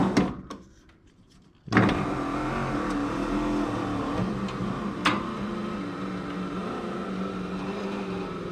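Mazda FC3S RX-7 power window motor running steadily for several seconds, starting about two seconds in after a few clicks, as it drives the glass along dry window tracks that the owner says badly need greasing.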